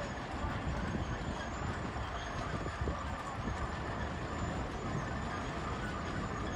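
Steady low rumble of a heavy vehicle's engine running, with no sharp events.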